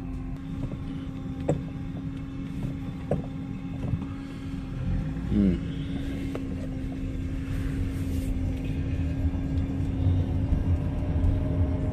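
BMW car driving, heard from inside the cabin: steady engine hum and low road rumble with a few light clicks, and a faint tone rising slowly in pitch over the last few seconds as the car gathers speed.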